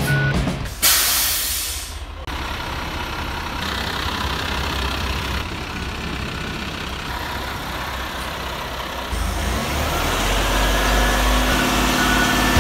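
Roll-off dumpster truck: a sharp blast of air hiss about a second in, lasting just over a second, then the diesel engine running. The engine grows louder and deeper from about nine seconds in as the hoist raises the container.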